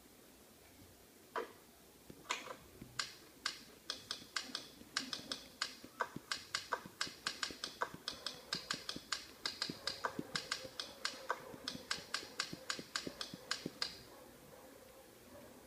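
Simulated typewriter key clacks from the Hanx Writer app, struck in an irregular run of several a second. The typing starts about a second and a half in and stops shortly before the end.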